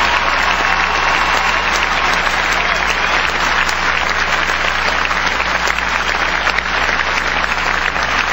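Large arena audience applauding steadily, with a faint low hum underneath.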